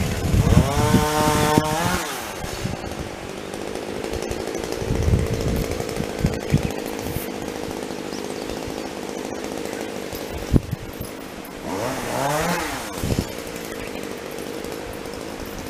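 A small engine running steadily, revved up and back down twice: once about half a second in and once near the end.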